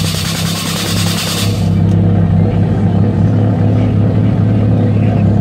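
Nitrous purge hissing from two nozzles at the front of a Mitsubishi Lancer, cutting off suddenly about a second and a half in. The car's engine idles steadily underneath.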